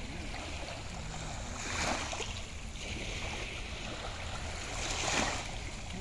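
Small sea waves washing against the shore, the wash swelling twice, over a steady low rumble.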